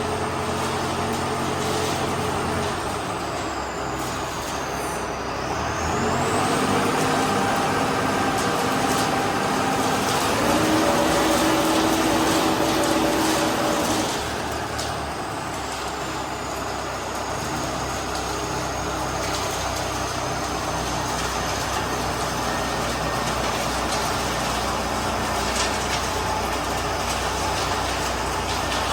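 Self-loading concrete mixer's engine running steadily. About six seconds in it picks up in pitch and loudness and holds there, then drops back about halfway through, with a faint high whine sliding up and down in pitch above it.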